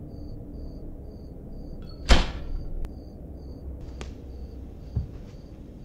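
Crickets chirping in an even rhythm over a low, steady rumble. About two seconds in comes one sudden loud bang that dies away quickly, followed by a few fainter knocks.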